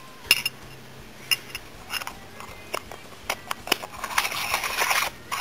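Sharp little clicks and taps of a screw-in Hoya HD UV filter being handled and fitted onto the front of a Canon 70-200mm lens, followed by about a second of rustling near the end.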